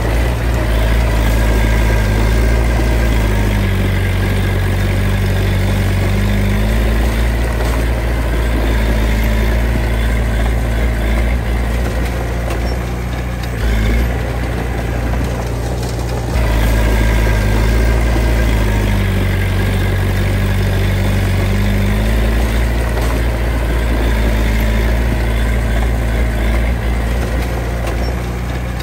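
Heavy diesel engine of earthmoving machinery running steadily, its revs swelling and easing off in slow rises and falls, with a short lull about halfway through.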